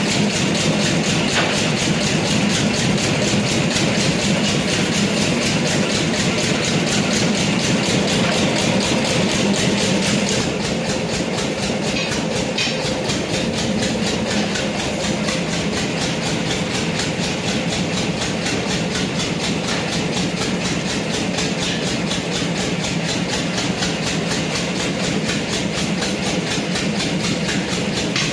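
A machine running steadily with a fast, even clatter, slightly quieter from about ten seconds in.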